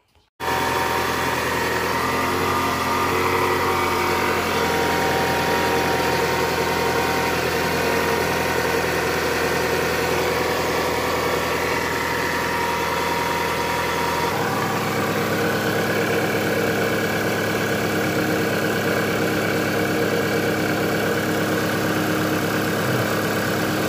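Toyota Camry's 2AZ 2.4-litre inline-four engine idling steadily with a knocking noise whose cause is being traced; the mechanics first suspected the timing chain. The engine note changes about halfway through.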